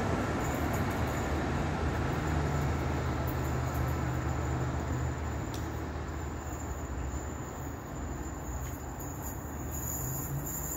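Two Class 50 diesel locomotives' English Electric V16 engines under power on a climb, their deep drone steadily fading as the train pulls away into the distance.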